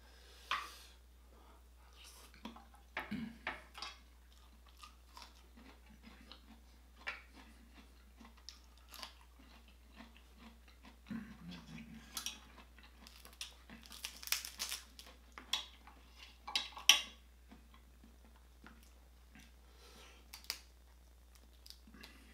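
Close-miked crab legs being cracked and their shells snapped apart by hand, with chewing of the crab meat. Irregular sharp cracks and clicks, a burst of louder ones a little past the middle.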